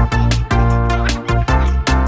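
Instrumental backing music of a children's song, with a steady drum beat and bass under pitched notes.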